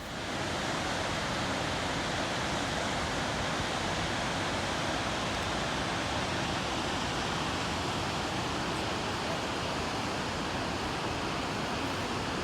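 Rushing water: a steady, even roar of fast-flowing water that starts abruptly with a cut and holds unchanged.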